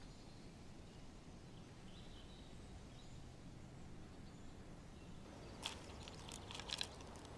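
Faint outdoor ambience: a low steady rumble with a few soft bird chirps, and a quick cluster of sharper chirps a little past the middle.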